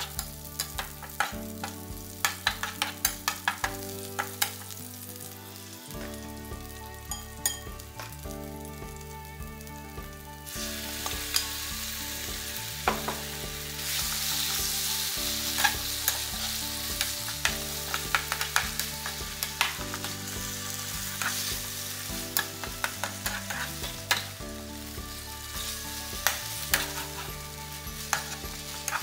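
Garlic and spring onions sizzle in oil in a nonstick frying pan while a metal spatula scrapes and taps against the pan. About ten seconds in the sizzle grows much louder as sliced raw beef goes into the hot pan, and the stirring clicks go on over it.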